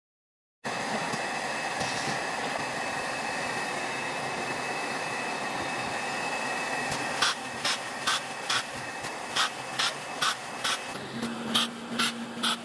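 Production-line machinery humming steadily with a faint whine. From about seven seconds in, a laser welder fires a run of short, sharp weld pulses, roughly two to three a second, as its pressing head welds bus bars to the battery cell terminal poles. A low hum joins near the end.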